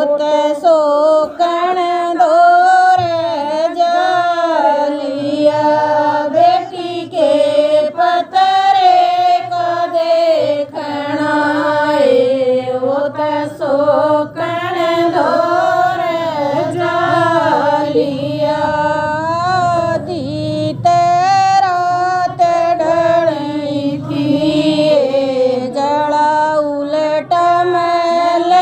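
Women singing a Haryanvi jakadi folk song, a wavering, ornamented melody.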